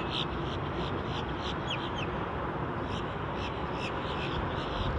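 Birds calling at a fishing dock: many short, harsh calls repeated every fraction of a second, with a couple of quick rising chirps about two seconds in, over a steady outdoor background of wind and water noise.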